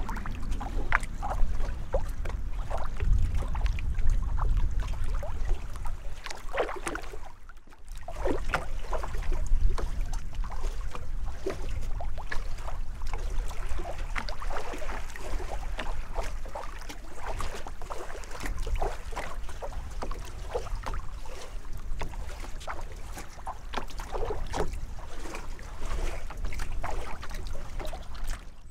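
Wind buffeting the microphone, with a low rumble, over small choppy waves lapping and splashing, and a brief lull about seven seconds in.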